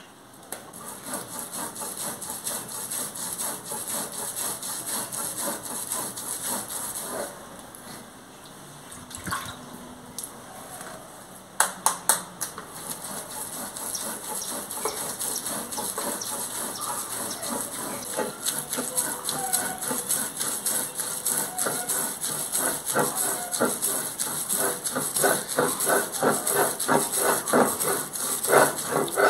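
Stone mano scraping back and forth on a stone metate, grinding toasted pumpkin seeds that have been wetted into a paste for the second grind: gritty rhythmic strokes that grow louder and more regular toward the end, with a few sharp knocks about twelve seconds in.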